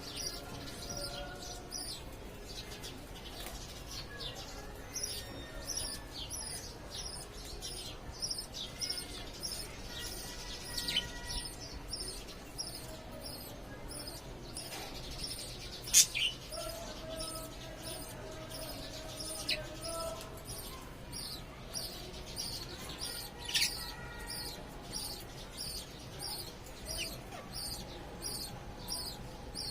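Parrot chirping: a steady run of high, quick chirps, about two or three a second, with a few louder sharp calls, the loudest about halfway through.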